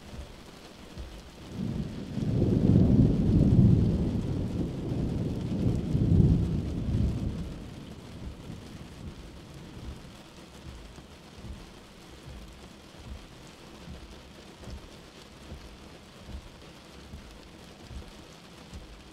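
Steady rain with a long roll of thunder that swells about a second and a half in, rumbles twice, and dies away after about eight seconds, leaving the rain hiss.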